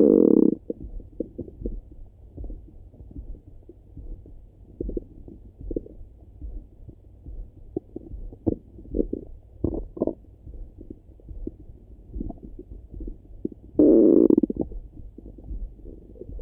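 Human stomach rumbling and gurgling heard through a stethoscope, muffled. A loud rumble right at the start and another about fourteen seconds in, with small scattered gurgles and pops in between.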